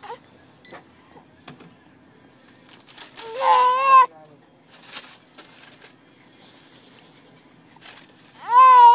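Baby screaming: two shrill, pitched screams, the first about three seconds in lasting under a second, the second starting near the end, with quiet between.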